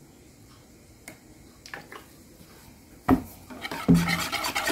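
A sharp knock about three seconds in, then a wire whisk starts beating thin pancake batter in a plastic mixing bowl: fast, continuous rattling and sloshing.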